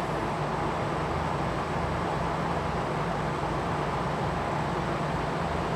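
Combination air conditioner and heater running in cooling mode: a steady rush of blowing air over a low, even hum.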